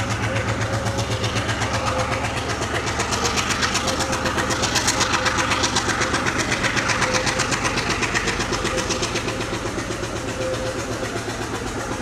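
Sri Lanka Railways diesel-hauled passenger train moving slowly past, its diesel locomotive engine running with an even rapid pulsing and a steady hum.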